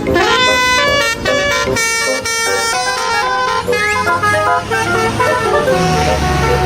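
Toy telolet bus's electronic horn sound effect: a multi-tone horn tune in stepped pitches. A low steady hum comes in near the end.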